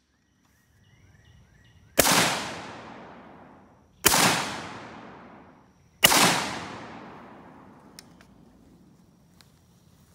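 Three rifle shots from an M16A2-style rifle, fired about two seconds apart, each sharp crack followed by a long fading echo. They are a three-round zeroing group.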